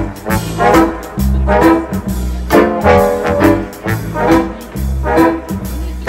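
Trombone ensemble with double bass playing a jazz instrumental passage: sustained brass chords over low bass notes, with a regular pulse a bit faster than once a second.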